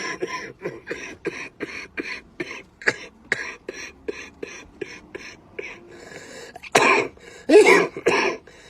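A man coughing in a long fit of short coughs, about four a second, then a few louder, longer coughs near the end.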